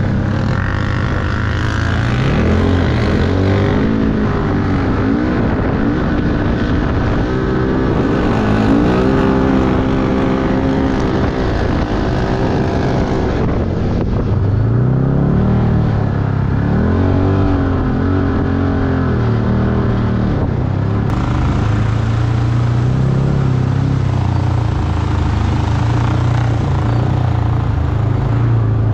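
Engine of an off-road side-by-side running under load on a muddy trail, its pitch rising and falling again and again as the throttle is worked.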